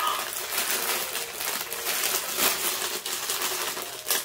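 Clear plastic garment bag crinkling and crackling as it is handled and pulled open, a continuous run of small crackles.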